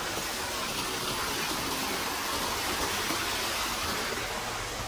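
Rushing water from a rain-swollen hillside stream or runoff beside the trail, a steady even gush.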